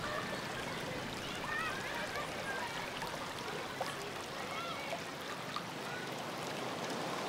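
Shallow seawater lapping and flowing steadily around the timbers of a wrecked wooden boat, with short high-pitched calls heard faintly over it now and then.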